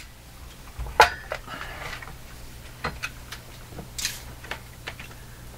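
Clunks and clicks of a Fisher System 8700 stereo amplifier chassis being tipped up and handled, with a sharp knock about a second in and a short hissy scrape about four seconds in, over a steady low mains hum.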